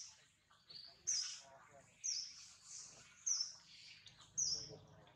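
Bird calling with short, high chirps, roughly one a second, over faint background voices.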